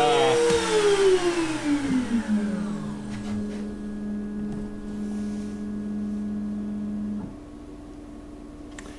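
Spindle motor of a Shapeoko Pro XXL CNC router whining. Its pitch glides down over about two seconds, then holds steady at the lower pitch. The whine cuts out about seven seconds in, leaving a quieter hum.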